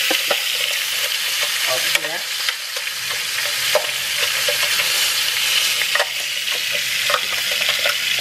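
Diced onion frying in hot grease in a skillet: a steady sizzle, with scattered light knocks of utensils and containers.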